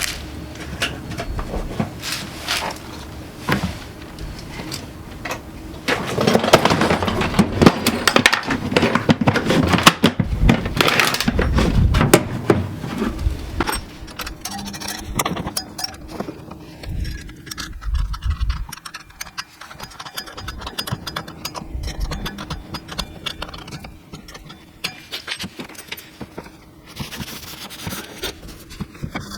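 Repeated metallic clinks, knocks and scrapes of hand work with tools and parts, loudest and busiest between about six and twelve seconds in.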